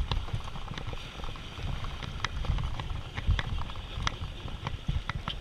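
Daiwa Aird Coastal baitcasting reel being cranked, with irregular mechanical clicks and creaks, over a low rumble of wind and waves.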